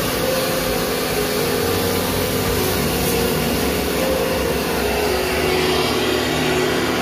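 High-pressure drain jetter (pressure-washer pump) running steadily, driving water through its blue hose to flush a blocked drain pipe, with the hiss and splash of the jet.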